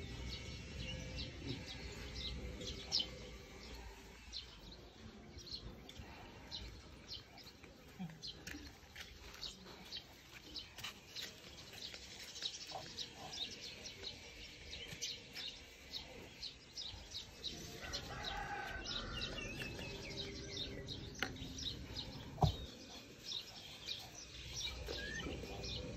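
Background birds chirping: many short, high chirps repeating throughout, with a fainter, lower call about two-thirds of the way in. A single sharp click comes a little past the three-quarter mark.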